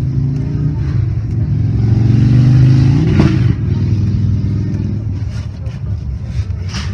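A motor vehicle's engine running nearby, growing louder to a peak about three seconds in with a brief rise in pitch, then easing off; a sharp click near the end.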